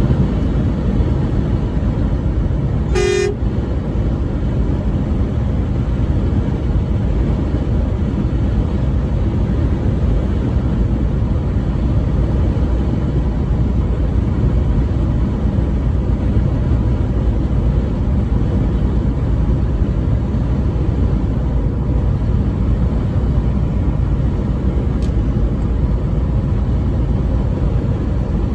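Steady low rumble of a truck driving on the highway, with one short truck horn blast about three seconds in.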